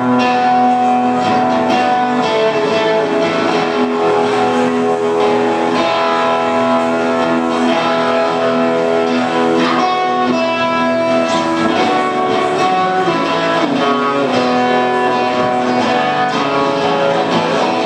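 Live band music with guitar to the fore.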